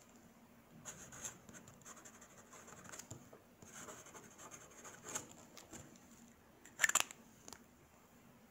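Fountain pen nib scratching faintly across paper as a signature is written. A few sharp clicks about seven seconds in as the cap is pushed back onto the pen.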